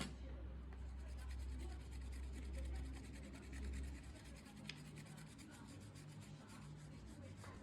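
Small CNC carving machine at work: faint scratchy cutting with rapid fine ticking, over a low hum that drops away about four seconds in.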